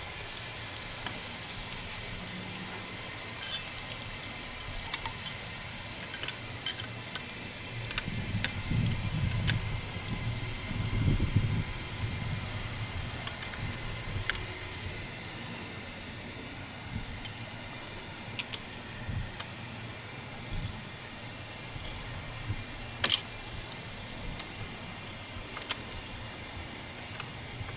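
A wrench clinking on the fire hydrant's top bolts as they are tightened to stop a leak at the bonnet joint: scattered light metallic clicks and clinks, the sharpest about 23 seconds in.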